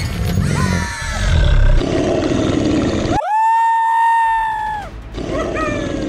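Upbeat background music with sound effects. About three seconds in, a high-pitched cry is held for a second and a half and then drops away, cartoon style.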